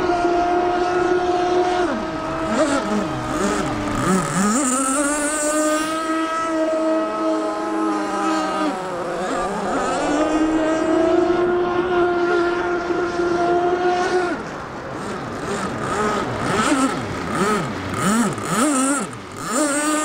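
Small two-stroke nitro engines of RC offshore racing boats running flat out, a high, steady buzzing note. The pitch sags and climbs back twice as the boats ease off and turn, and wavers in the last few seconds.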